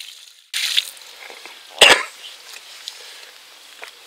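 A short splash of water poured from a bucket onto a fish unhooking mat about half a second in, then a single sharp thump, the loudest sound, just under two seconds in.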